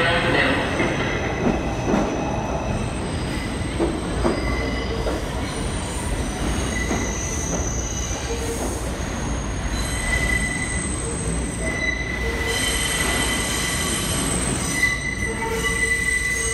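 R142 subway train running out of the station, rumbling and clattering past close by at first, then moving away down the track. Its wheels squeal in high steady tones that come and go, strongest in the second half.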